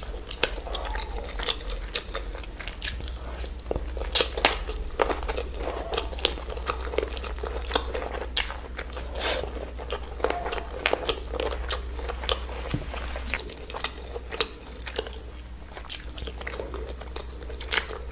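A person chewing chicken curry and rice eaten by hand, close to the microphone, with frequent irregular wet mouth clicks. A low steady hum sits underneath.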